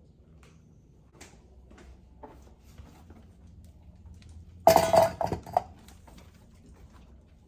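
Kitchen clatter of glass canning jars with metal lids: faint small clicks, then a quick cluster of sharp clinks and knocks with a brief ringing tone a little past the middle.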